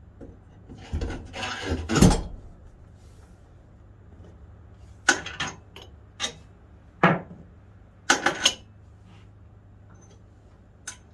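A motorcycle wheel with its tyre on is shuffled and laid down flat, ending in a thump about two seconds in. Then come a few short, sharp clicks and knocks as parts at the wheel hub are handled.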